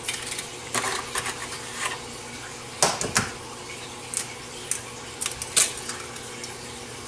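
Eggs being cracked by hand into a plastic mixing bowl: a string of sharp shell cracks and taps at uneven intervals, the loudest about three seconds in.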